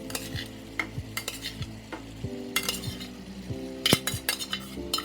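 A spoon scraping and knocking against a pot as boiled ackee is scooped and stirred into hot seasoned oil, with a light sizzle underneath. There are sharp knocks about every half second at first, then a few more spread out.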